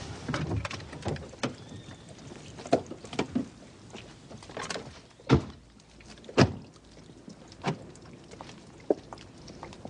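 Clunks and knocks of people at a parked car, its doors being handled, with footsteps; the two loudest knocks come about five and six and a half seconds in.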